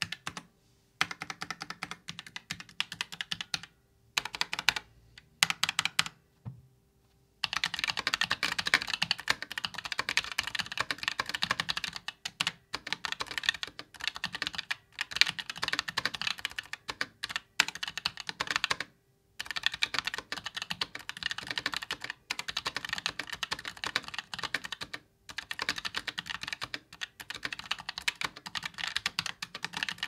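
Fast typing on an Asus ROG Strix Scope RX keyboard with RX Red linear optical switches: rapid, dense key clicks. There are a few short pauses in the first seven seconds, then near-continuous typing with only brief breaks.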